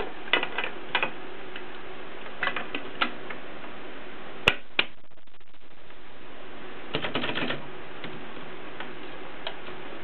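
Orange ABC portable typewriter being handled, its metal body and parts clicking and clacking in short, irregular clusters rather than a typing rhythm, with two sharp snaps about halfway through. A steady hiss sits underneath.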